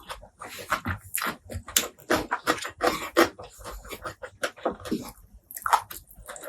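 Close-miked eating sounds: wet chewing and crunching of food, a quick, uneven run of smacks and crunches several times a second.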